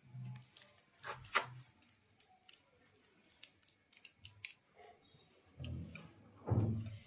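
Parts of a ring light stand being handled and fitted together: a scattered series of sharp clicks and knocks, with a few duller thumps near the start and toward the end.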